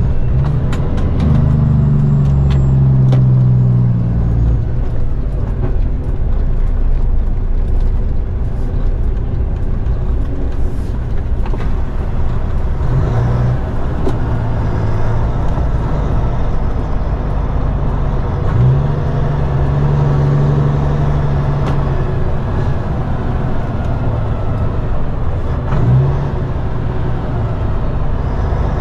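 Road train's diesel engine heard from inside the cab, running at low speed, its pitch shifting up and down a few times as the truck manoeuvres.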